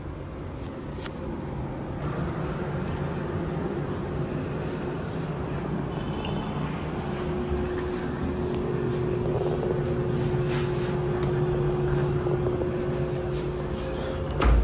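Steady low mechanical hum that grows slightly louder, with a constant tone coming in about seven seconds in.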